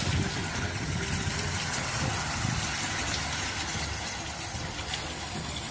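Storm wind and heavy rain: a steady rushing noise, with low gusts buffeting the phone's microphone.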